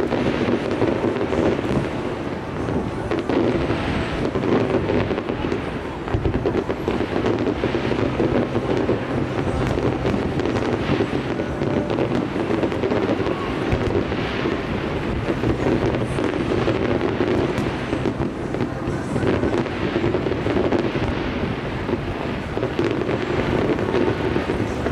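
Aerial fireworks shells bursting in a dense, continuous barrage of bangs and crackling.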